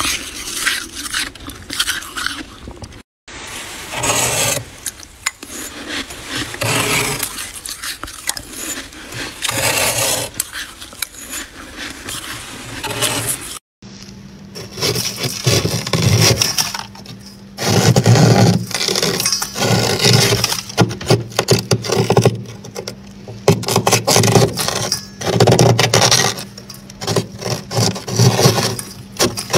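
Metal spoon scraping built-up frost off the inside of a freezer, in repeated strokes of a second or two each. A steady low hum sits under the later strokes.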